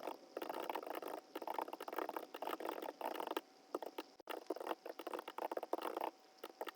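Pen writing on paper: irregular runs of scratchy strokes broken by short pauses.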